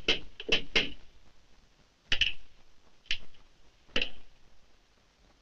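A series of sharp knocks and clicks: a quick cluster in the first second, then three single knocks about a second apart.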